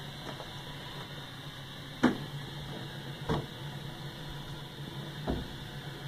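Low steady hum with water running through the pipework of an IDM Terra ground source heat pump as it is flushed with borehole water, the compressor not yet running. Three sharp knocks, about two, three and five seconds in.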